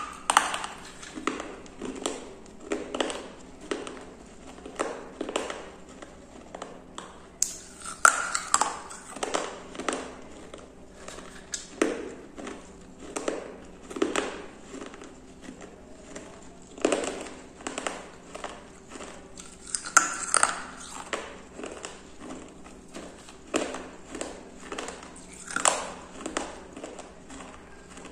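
Mouth chewing and crunching pieces of a water-softened clay kulhad. Short crunches come in a steady run, roughly twice a second, with a sharper, louder bite every few seconds as a fresh shard is bitten.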